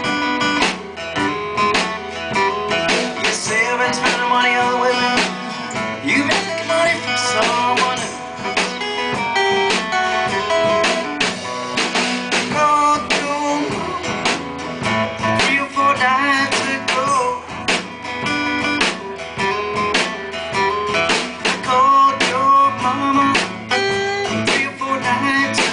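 A live rock-blues trio playing: lead guitar over rhythm guitar, with a drum kit keeping a steady beat.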